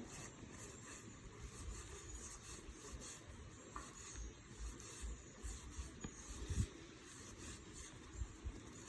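Cardboard trading cards from a freshly opened pack sliding and rubbing against one another as they are flipped through by hand, with small soft taps and one sharper knock a little past halfway.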